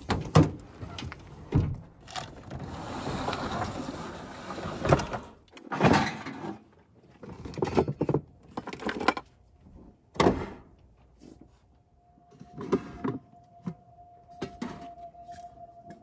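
Knocks, thuds and clatter of camp cookware being handled in a wooden slide-out kitchen drawer in the bed of a pickup truck: pots, cups and bottles are moved and set down, with a rustling, sliding stretch early on. In the last few seconds a thin steady tone sets in under the handling.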